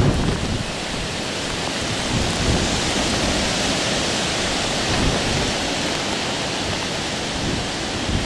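Hurricane wind and rain making a steady rushing hiss, with gusts rumbling on the microphone at the start.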